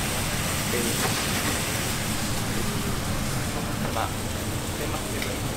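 Steady hissing restaurant noise with faint voices in the background and a few light clicks.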